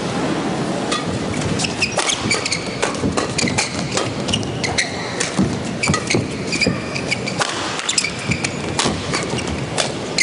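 Badminton rally: sharp cracks of rackets striking the shuttlecock and short squeaks of shoes on the court, starting about a second in after the serve, over a steady murmur from the hall.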